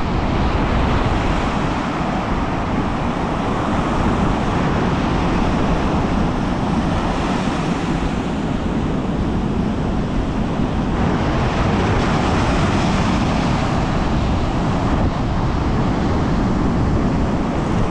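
Ocean surf washing on a sandy beach, a steady loud rush of noise, with wind buffeting the microphone.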